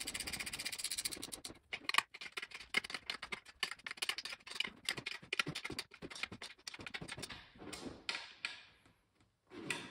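Rapid clicking and light metallic rattling as a seat slider bracket is worked and fastened to the underside of a racing seat. It thins out to scattered clicks and goes quiet briefly near the end.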